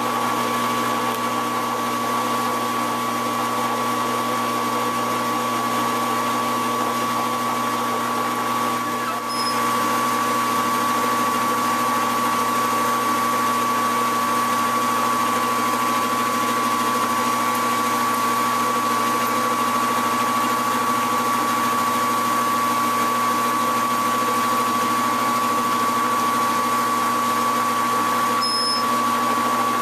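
Metal lathe running steadily at slow speed, its motor and drive giving a constant whine and hum, while a chamber reamer cuts into a rifle barrel under flood coolant.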